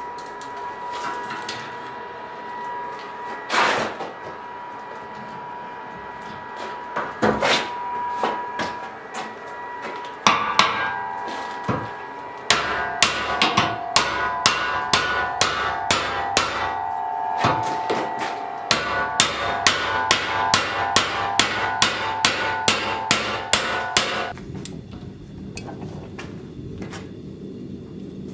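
A hammer striking a chisel against a forged scrap-steel canister billet held in a bench vise, cutting the canister off the billet. The strikes ring like metal. There are a few single blows at first, then from about twelve seconds a steady run of about two blows a second, which stops shortly before a quieter, steady sound near the end.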